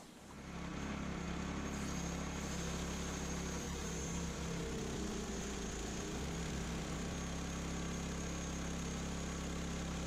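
Woodland Mills HM126 portable bandsaw mill's engine running steadily under load as the band blade cuts along a log, fading in within the first second.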